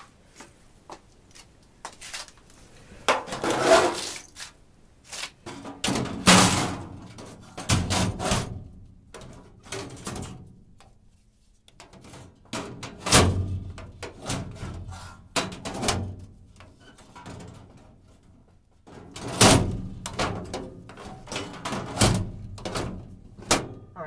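Irregular knocks, thunks and rustling of objects being handled, moved and set down around an open furnace cabinet, with a few louder knocks scattered through.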